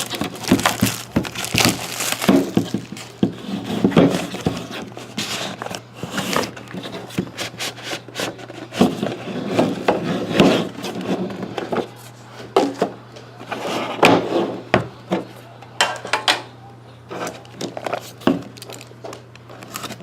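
A sealed trading-card box being opened by hand: plastic shrink-wrap crinkling, and cardboard rustling, tearing and knocking in irregular bursts.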